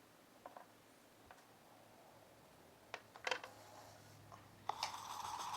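Small sharp clicks and taps of soldering tools working on a circuit board, with a cluster of louder clicks about three seconds in and a short hiss near the end.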